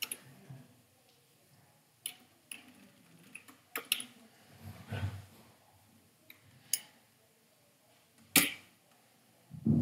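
Sparse computer keyboard keystrokes: a handful of single sharp taps spaced a second or more apart.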